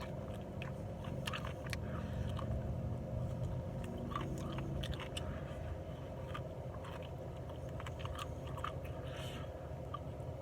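A person chewing and biting into crispy, glazed chicken wings, with scattered short crunches and clicks.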